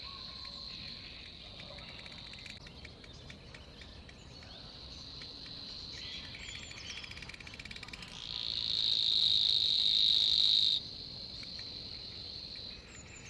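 Forest ambience of insects trilling steadily at a high pitch, with a few faint bird chirps. About eight seconds in a louder trill swells up, then cuts off suddenly near the eleven-second mark.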